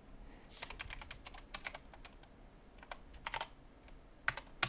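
Computer keyboard typing: several short runs of key clicks separated by brief pauses, with two sharper single keystrokes near the end.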